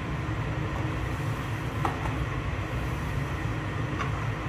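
Steady low hum and hiss of kitchen background noise under a simmering curry, with a faint knock about two seconds in and another near the end, as a wooden spatula touches the wok.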